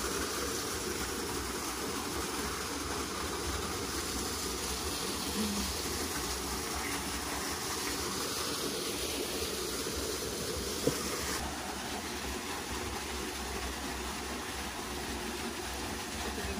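Steady rush of a small waterfall pouring into a rock pool, with one brief sharp tap about two-thirds of the way through.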